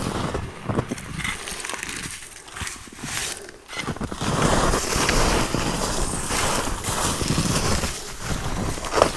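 Footsteps crunching through snow, with trekking poles, as hikers walk a snowy trail; the sound eases off briefly about three seconds in.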